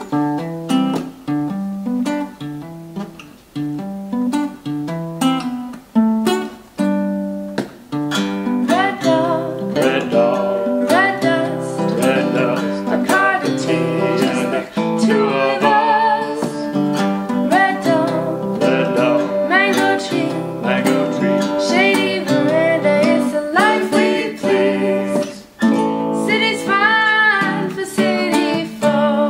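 Acoustic guitar and ukulele playing a song together, with an instrumental opening. A woman's voice comes in singing about eight seconds in and carries on over the strumming.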